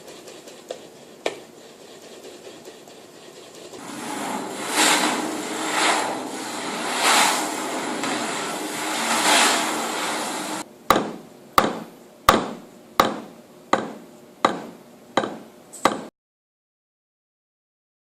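Sound-effect sequence: a rushing noise that swells and ebbs every two seconds or so, then eight sharp knocks about two thirds of a second apart, each ringing briefly, before the sound cuts off abruptly.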